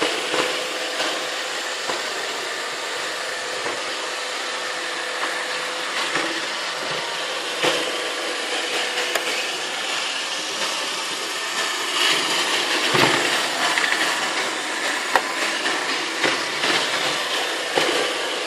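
Roomba robot vacuum running with a steady whir and a faint hum, with scattered knocks and clicks.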